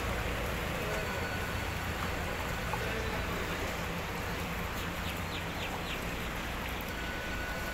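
Steady outdoor background hiss with a low hum, and a few faint bird chirps about five seconds in.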